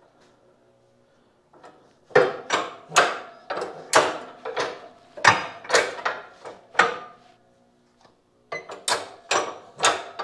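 Shift lever and shift fork in the transmission of a 1927 John Deere D being worked back and forth on the shift rail: a run of sharp metal clunks and clacks about twice a second, a brief pause, then more clunks near the end. It won't go into gear because the gears are not yet rotated into line to mesh.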